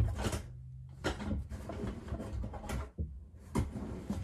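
A few scattered knocks, clicks and rattles of hands and tools working on a sink's plumbing, with a low background rumble.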